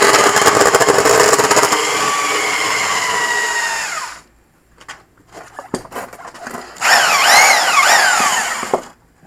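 Portable band saw running while cutting through a steel-belted car tire. It winds down and stops about four seconds in. After a couple of seconds with a few knocks, it runs again for about two seconds, its pitch rising and falling, then stops.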